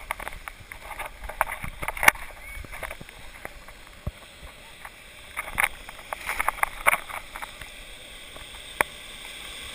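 Sea water sloshing and splashing around a camera held in the surf, with scattered sharp clicks and knocks; clusters of them come about two seconds in and again from about five and a half to seven seconds.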